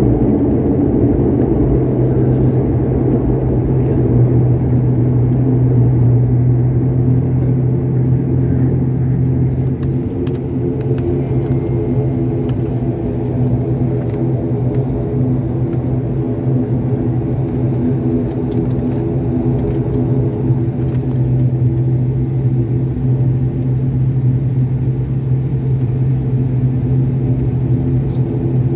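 Turboprop airliner's engines and propellers running, heard inside the cabin as the plane rolls along the runway after landing: a loud, steady low drone with a set of steady higher tones over it that come through more clearly about ten seconds in.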